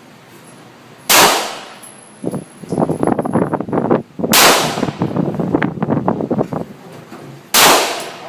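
Three loud gunshots about three seconds apart, each ringing off with a short echo, with irregular clattering between them.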